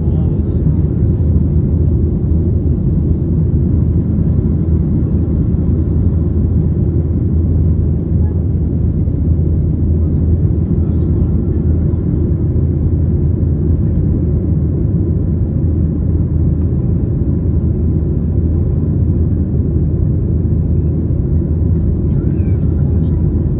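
Airliner cabin noise in flight: a steady low rumble of engines and airflow heard from inside the passenger cabin.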